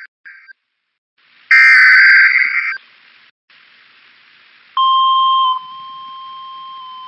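Emergency alert broadcast signal: short, harsh bursts of screeching digital data (a SAME alert header), the loudest about a second and a half in. About five seconds in, a single steady alert tone starts, typical of the NOAA Weather Radio warning alarm. It is loud at first, then holds a little quieter over faint hiss.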